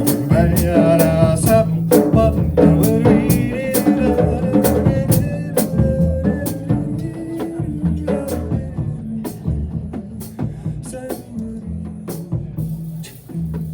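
Live jazz band playing an instrumental passage, with drum kit strokes and cymbals over bass notes and a melodic lead line, growing quieter in the second half.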